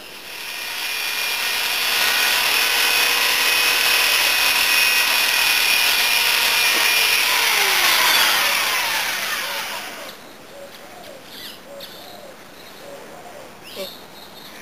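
Handheld power tool working wood, running at full speed with a steady high whine, then switched off and winding down in falling pitch about ten seconds in. A few light knocks follow.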